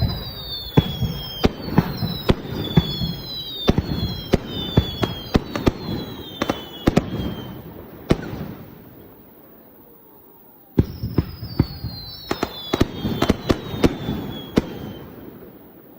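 Aerial fireworks going off in rapid volleys: many sharp bangs with rumbling echoes and several whistles falling in pitch. The bangs stop about halfway through, then a second volley starts a few seconds later.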